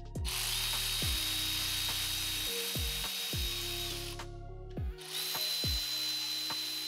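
Cordless power tool with a socket extension spinning out the connecting-rod cap bolts on a BMW N54 engine, in two runs of about four and two and a half seconds with a steady high motor whine and a short pause between. Background music with a steady beat plays underneath.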